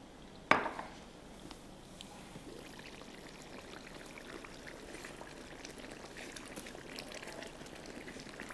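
A sharp clink about half a second in, then a steady soft hiss and bubbling from a wok of green chicken curry simmering, as its lid is lifted and steam pours out.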